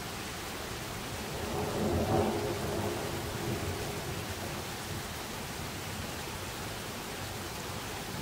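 A roll of thunder rumbles over a steady hiss. It swells about a second and a half in, is loudest around two seconds, and dies away over the next two seconds.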